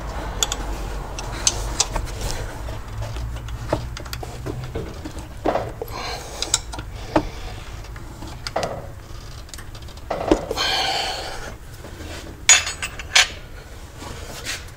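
Metal tool clinking and scraping on the idler pulley bolts as they are tightened, in scattered clicks and short scrapes. A few sharper clinks come near the end.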